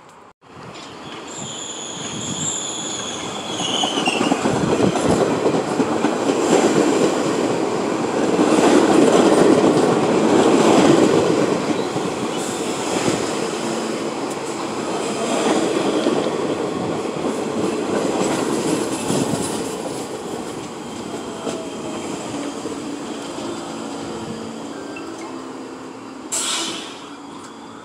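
R46 subway train running along the platform: a high wheel squeal a couple of seconds in, then a loud rumble and clatter of wheels on rail that peaks about ten seconds in and eases off as the train slows. Near the end the motor whine steps down in pitch, and a short burst of hiss comes about 26 seconds in.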